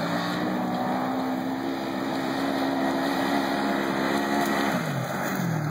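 Polaris RZR 900XP side-by-side's twin-cylinder engine running under power at high, steady revs as the machine is driven across loose dirt. The revs drop off about five seconds in and then pick up again at the end.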